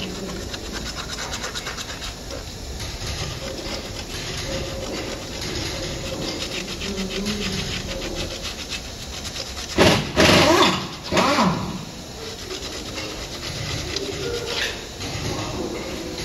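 Rapid rasping strokes of something being scrubbed and scraped by hand inside the steel bearing bore of a steering knuckle, cleaning it before a new wheel bearing goes in. About ten seconds in come two loud bursts of noise, one short and one about a second long.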